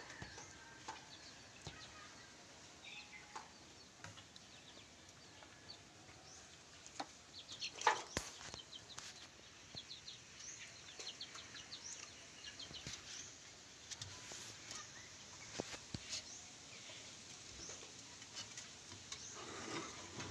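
Faint bird calls, short chirps repeated through the whole stretch, over scattered clicks and knocks of handling, with one loud sharp knock about eight seconds in.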